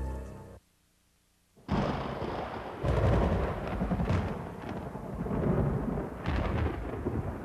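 Background music fading out, then after about a second of silence, thunder rumbling from a lightning storm, with a sudden loud surge about three seconds in and several smaller swells after it.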